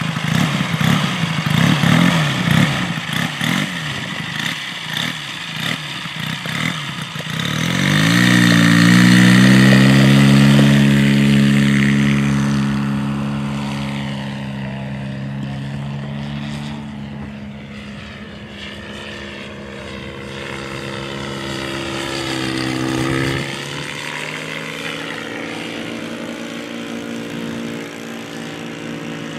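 Valach VM120B2 four-stroke twin engine of a 40% scale Fokker Eindecker model aircraft, turning a 30×12 propeller. For the first several seconds it runs unevenly at low throttle. Then it revs up to full throttle for the takeoff and drones steadily as the model climbs away and flies around, with its pitch dropping about two-thirds of the way in as it passes.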